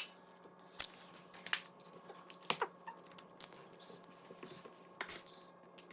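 A few sharp clicks and taps, spaced irregularly, over a faint steady hum: eggs being cracked against the edge of a mixing bowl and dropped in.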